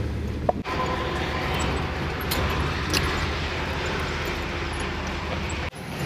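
Vehicle engine and road noise heard from inside a pickup truck cab as it drives slowly. There is a steady rumble with a broad hiss, cutting out briefly twice.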